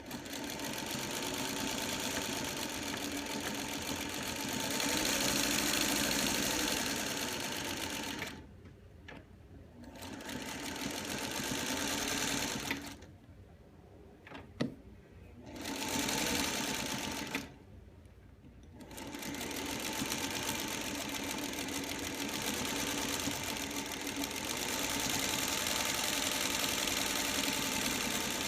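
Singer 301A sewing machine stitching in four spells of running, its speed swelling and easing, with short stops between them. A couple of sharp clicks come in one of the pauses.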